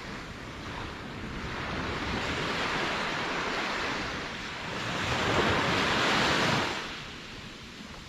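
Ocean waves breaking on the shore: the surf rushes up in two swells, the louder one about five seconds in, then drops away about a second before the end, under a steady wash of wind and sea.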